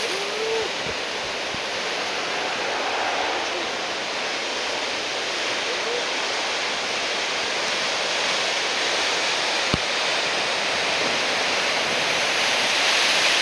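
Ocean surf from a large typhoon swell breaking on the shore: a steady rush of waves that swells louder near the end. A single sharp knock comes about ten seconds in.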